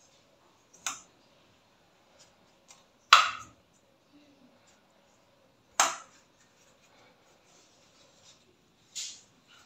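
A metal spoon clinking against a steel cooking pot four times, a couple of seconds apart, while minced meat filling is scooped out; the second clink is the loudest.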